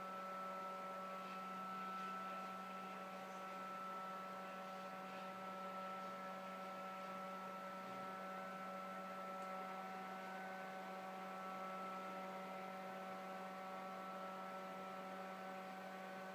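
Steady electrical motor hum made of several held tones, the lowest the strongest, from an SMC Elegant Series ceiling fan's motor running.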